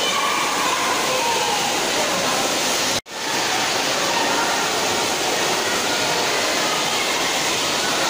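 Water pouring steadily out of the outlets of four water-slide tubes into a pool, an even rushing splash. It cuts out for an instant about three seconds in.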